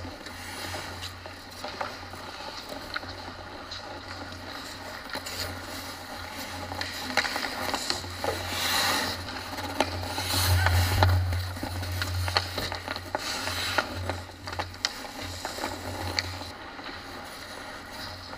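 Ice hockey play close to the net: skates scraping and carving the ice in short hissing sweeps, with sharp clacks of sticks and puck throughout, over a steady low hum.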